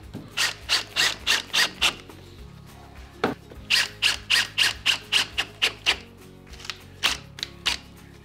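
Makita cordless drill-driver running screws into plywood, in short evenly spaced pulses about three a second. There are two main runs of pulses with a pause between them.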